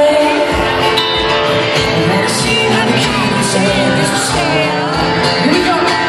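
Live pop music: a male singer and guitar over a steady beat of about two pulses a second, loud and heard through a phone in the audience.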